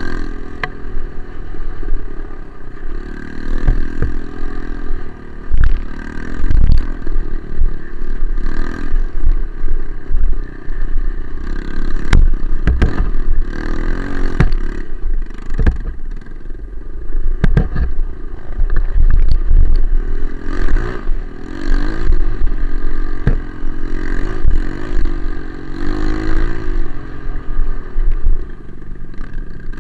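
Trail motorcycle engine running, its revs rising and falling over and over, with frequent knocks and rattles along the way.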